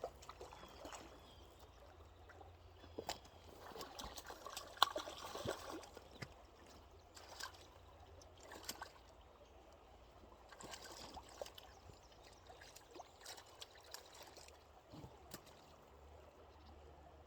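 River water trickling and splashing, with scattered short clicks and knocks that come thickest around four to six seconds in.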